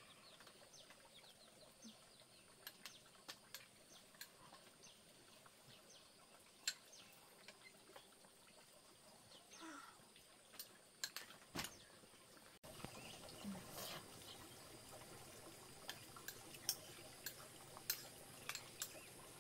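Near silence with faint, scattered clicks and scrapes of a metal spoon against a ceramic bowl.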